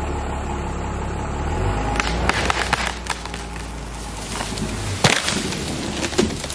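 A tree trunk cracking and splintering as a strap pulls it over, then the tree falling with a loud crash of breaking branches about five seconds in, a few more cracks just after. A truck engine drones low and steady underneath until the tree comes down.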